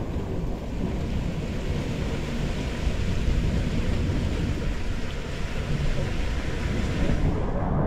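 Steady rushing, rumbling noise of wind buffeting the microphone, with sea surf.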